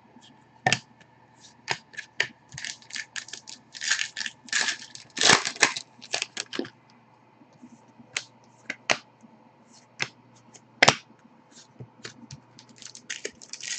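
Hockey trading cards being handled and dealt onto piles on a table: an uneven run of short clicks, slaps and rustles as the cards are flicked and laid down, with one sharp snap about eleven seconds in.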